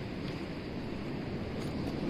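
Steady wind noise rumbling on the microphone, an even outdoor hiss with no distinct events.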